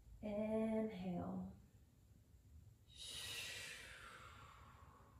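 A woman's long, audible breath about three seconds in: a soft rush of air lasting about two seconds that slides down in pitch, taken in time with a yoga breathing cue.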